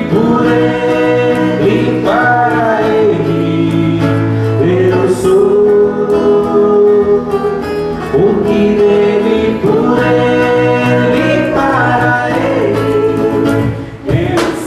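A band playing a baião praise song: women singing the melody over strummed acoustic guitar and a drum kit.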